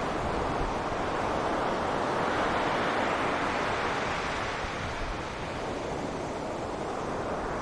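Ocean surf on a beach: a steady wash of waves, swelling about a third of the way through and then easing off.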